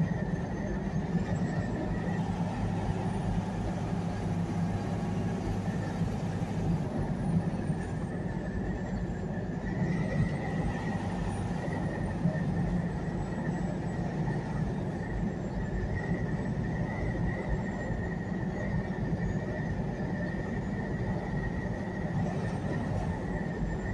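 Semi truck driving at highway speed, heard from inside the cab: steady engine and road noise with a thin, steady high whine above it.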